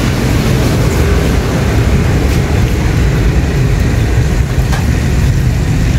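Steady, loud low rumbling background noise, even throughout with no distinct events.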